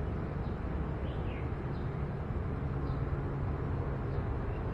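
A few faint, short bird chirps, about one a second, over a steady low background rumble.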